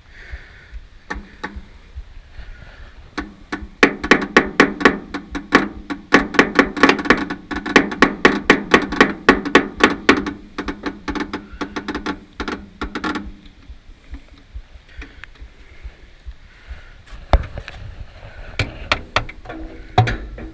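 Repeated sharp metallic knocks as the wood chipper's starter solenoid is tapped with a tool to free it, which the owner suspects is stuck. A few scattered taps, then a fast run of about four knocks a second with some ringing, then a few more taps near the end.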